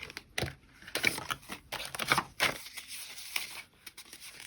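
Paper bills and a cash envelope being handled, with irregular crinkles, rustles and sharp paper snaps.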